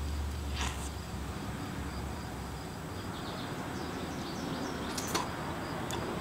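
Outdoor background hiss with an insect chirping in an even, high-pitched pulse throughout, and three brief soft clicks from the fruit being handled.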